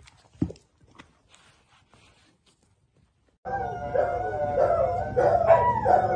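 A dog howling and whining in long, wavering notes, starting about three and a half seconds in. Before it there is a single soft thump and a few faint taps.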